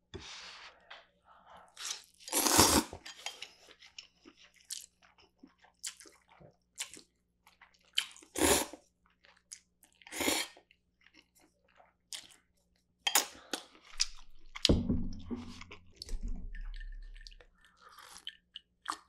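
Close-miked eating sounds of spicy cold noodles with thin-sliced pork: about three loud noodle slurps with chewing between them, then swallowing gulps of a drink near the end.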